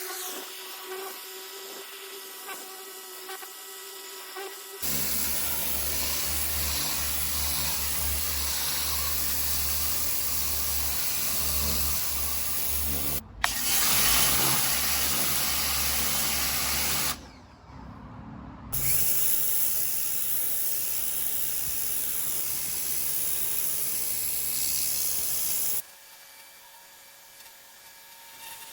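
Ryobi 1600 psi electric pressure washer spraying: a steady hiss from the water jet over the hum of the pump motor. It starts about five seconds in, cuts out briefly twice, and stops near the end.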